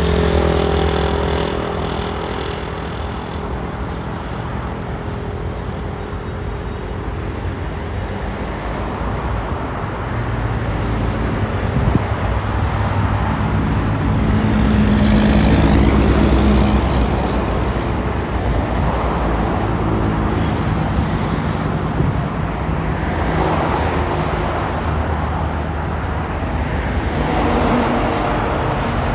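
Steady street traffic on a city avenue, cars passing one after another with engine hum and tyre noise. A heavier vehicle passes about halfway through, the loudest moment, and a short sharp knock sounds just before it.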